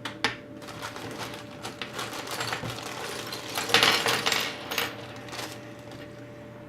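Small rotary-tool accessories, cutting discs and attachments, clicking and rattling as they are handled, with a denser clatter a little past the middle.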